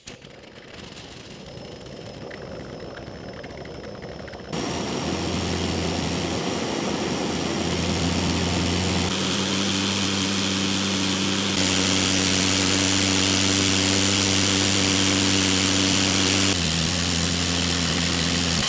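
Small homemade rocket combustion chamber firing: a quartz-tube chamber with a metal swirl injector and a plain hole as its nozzle. Its flame jet makes a loud steady rushing noise with a low hum under it. The noise builds over the first few seconds, then jumps louder and changes abruptly a few times.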